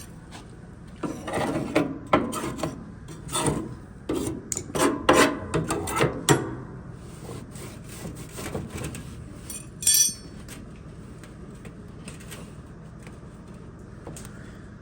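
Small brush scrubbing lint and dirt out of a clothes dryer's lint-filter housing, in a run of short, irregular strokes that fade after about six seconds. A single sharp knock about ten seconds in.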